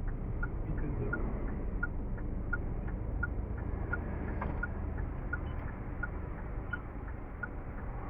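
Audible pedestrian crossing signal at a Japanese intersection, sounding a short electronic chirp over and over, about one every 0.7 seconds, over a steady rumble of city traffic.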